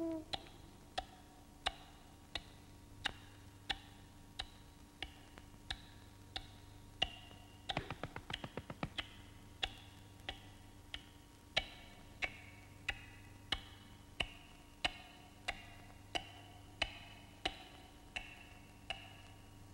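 Slow, even ticking like a clock's, about three ticks every two seconds, with a quick run of faster ticks about eight seconds in.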